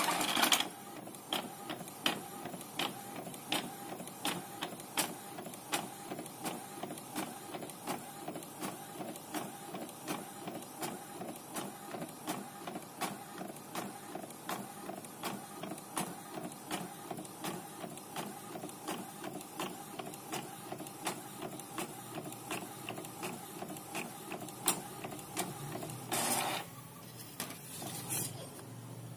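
Epson inkjet printer printing a sticker sheet: the print head carriage shuttles back and forth in a steady rhythm of about two strokes a second. A louder burst near the end comes as the printed sheet feeds out.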